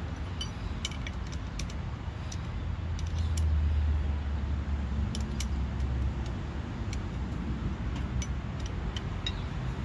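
Scattered light metallic clicks and clinks of small parts or tools being handled, over a steady low rumble that swells a little around three to four seconds in.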